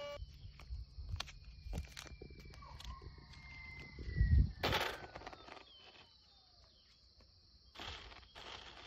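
Faint whine of a HobbyZone AeroScout's small electric motor, falling slowly in pitch as the plane comes in low, with wind buffeting the microphone. A thump comes about four seconds in.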